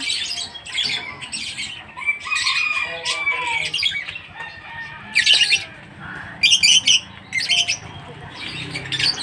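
Lovebirds chattering and squawking in short, shrill, high-pitched bursts. The loudest calls come about five seconds in and again in quick runs toward the end.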